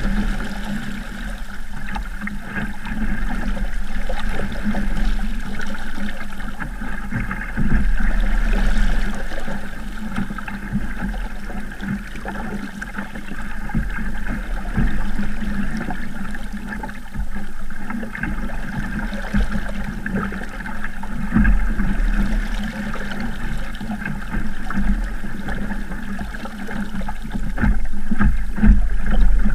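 Water rushing and splashing along the hull of a small Sabot sailing dinghy under way in choppy water, with an uneven low rumble that swells and fades.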